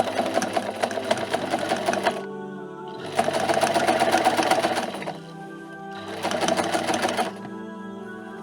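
Background music of held, steady tones, overlaid by three bursts of fast mechanical rattling like a sewing machine running: one at the start, a louder one about three seconds in, and a shorter one about six seconds in.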